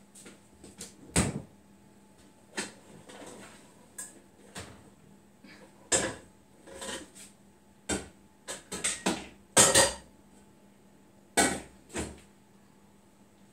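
A kitchen wall cupboard opened and metal pots handled: a string of irregular knocks and clanks, loudest about a second in and again just before ten seconds.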